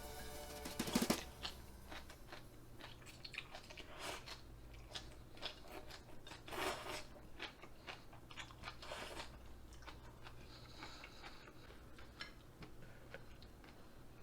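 A person chewing mouthfuls of cold jjolmyeon (chewy Korean wheat noodles). The mouth noises are short and irregular, with a few louder ones spread through.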